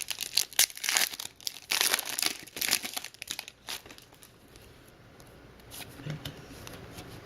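A wrapper on a pack of hockey trading cards being torn open and crinkled. It crackles in quick bursts for about three and a half seconds, then goes much quieter.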